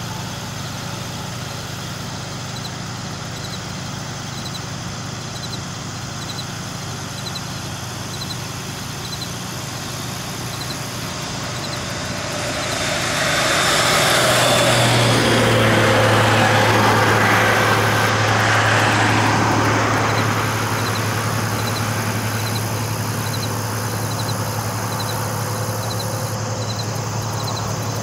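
A box truck drives past on the road, its engine and tyre noise swelling and fading over several seconds, over a steady low engine hum.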